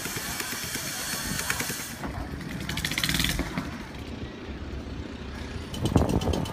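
Long-tail boat engines running: small engines driving long propeller shafts, with the sound changing abruptly from one stretch to the next and growing louder about six seconds in.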